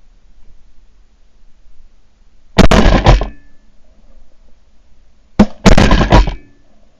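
Shotgun blasts in two volleys about three seconds apart, each a quick run of two or three very loud shots.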